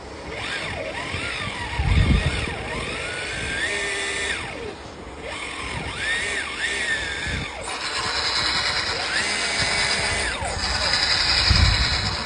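Hydraulic pump of a large RC excavator whining, its pitch rising and falling again and again as the hydraulics are worked. Two low thumps, about two seconds in and near the end.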